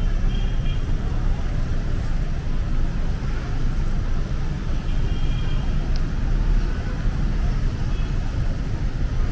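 Steady city street traffic: a continuous low rumble of passing cars, buses and motor scooters, with faint voices of passers-by.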